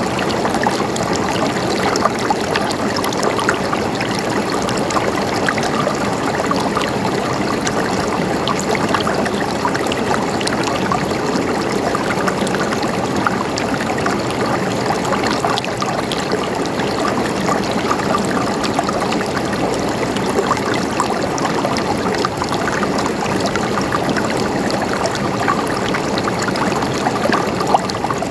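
Stream water flowing and gurgling steadily, with a dense patter of small splashes.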